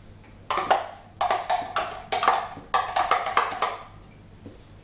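A spoon knocking quickly and repeatedly against the inside of a Cookeo multicooker's pot while stirring, about five knocks a second, each with a short ringing tone, stopping near the end. The stirring mixes stock into the pot.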